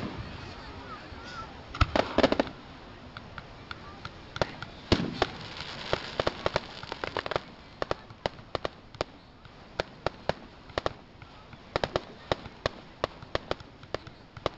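Fireworks display: shells burst with sharp cracks about two seconds in and a deeper bang about five seconds in. A dense run of crackling follows, then scattered single pops and crackles to the end.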